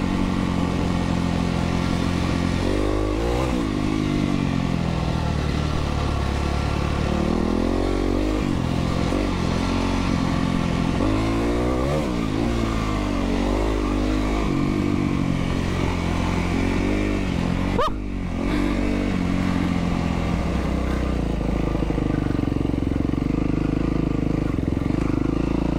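Yamaha WR450F single-cylinder four-stroke dirt bike engine heard on board while riding, its pitch rising and falling again and again as the throttle is opened and closed through the gears, over steady wind rush. About two-thirds of the way through, the engine briefly drops off.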